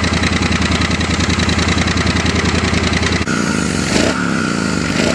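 Triumph Bonneville T100 parallel-twin engine running through a handmade twin scrambler exhaust: an even idle at first, then, after an abrupt change about three seconds in, two short throttle blips that rise and fall quickly.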